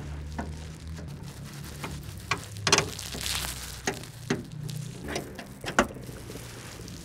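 Hands fitting an inline fuel filter into a car's fuel line: scattered small clicks and knocks, with a short rattle about three seconds in, over a low steady hum.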